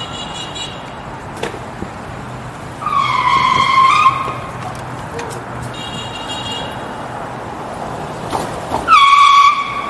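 City street traffic noise with two loud, high-pitched squeals, each about a second long: one around three seconds in and one near the end.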